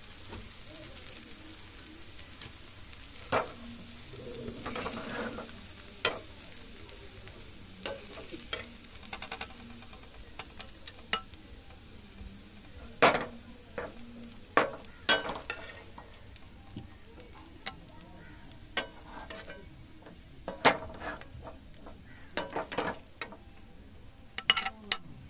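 Steel spatula stirring and scraping poha in a metal kadai, with a sizzle that dies away as the pan cools after the gas is turned off. In the second half, the poha is scooped onto a plate, with sharp taps and clinks of the spatula on the pan and plate.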